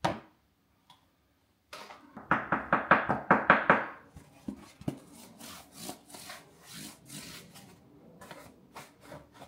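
Hard plastic grabber jaws of a Darlac Grab n Lift being handled and rubbed. There is a click at the start, then a quick run of scraping strokes, about seven a second, for nearly two seconds, then softer scattered knocks and rubs.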